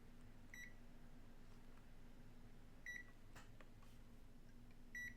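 Multimeter key beeps: three short, high beeps about two seconds apart as its buttons are pressed to move through the menu, with faint button clicks after the second.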